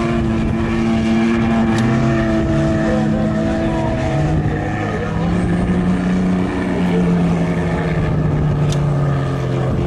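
Rally vehicle's engine running steadily, its pitch shifting a little about halfway through.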